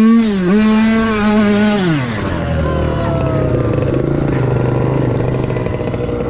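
Pit bike engine revving, its pitch dipping and rising with the throttle, then falling away about two seconds in to a lower, steady running note.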